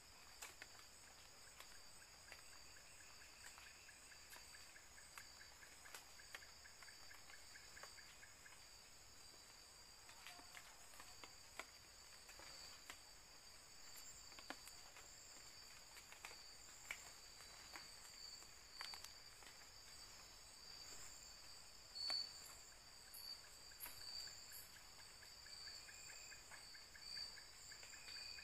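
Faint chorus of night insects: steady high-pitched trilling, with scattered faint clicks and rustles.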